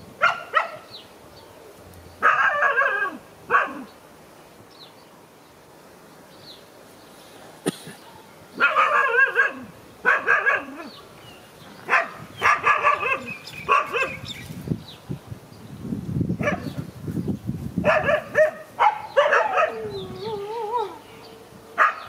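A dog barking in irregular bursts of several barks at a time, ending in a wavering whine.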